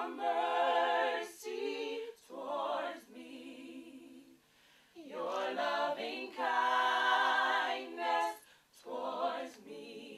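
A small vocal group of men and women singing a cappella in harmony, in held phrases with a brief pause about four seconds in.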